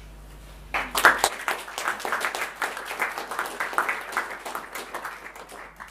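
Audience applauding, starting about a second in and stopping just before the end.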